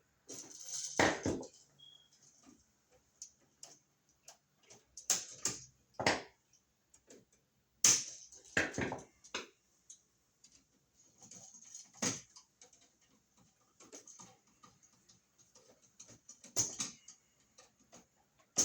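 Hand-tool handling noise at an electrical receptacle: irregular clicks, knocks and short scrapes as a copper wire is looped around a terminal screw and the screw is tightened with a screwdriver.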